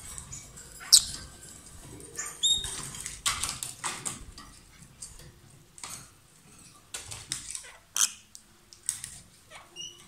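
Pair of rosy-faced lovebirds chirping and squeaking in short, sharp, high calls, in quick runs. The loudest calls come about a second in and near eight seconds.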